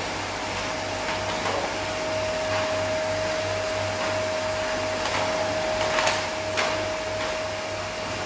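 Canister vacuum cleaner running steadily, a constant motor whine over the rush of suction air as the nozzle is worked over the floor, with a few sharp knocks.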